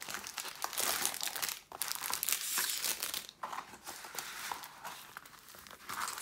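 Clear plastic protective film on a diamond painting canvas crinkling as hands smooth and flatten the canvas, busier for the first three seconds, then softer.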